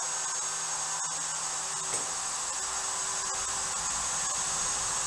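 Table-mounted router motor running steadily at speed with a high whine, spinning free with no load once the CNC-driven biscuit-slot cut has finished.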